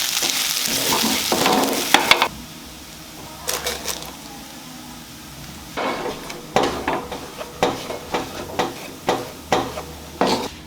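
Food sizzling in a frying pan, cutting off sharply about two seconds in. Later come a series of short clicks and knocks of a utensil stirring and turning food in the pan.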